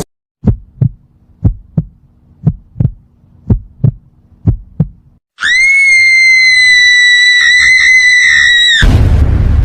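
Heartbeat sound effect: five double thumps about a second apart, then a long steady high electronic beep, like a heart monitor's flatline tone, that cuts off suddenly after about three and a half seconds.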